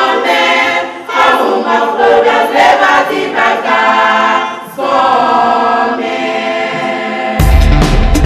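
Choir of men's and women's voices singing together without instruments, in phrases with short breaths between them. About seven seconds in it cuts abruptly to loud instrumental music with heavy bass.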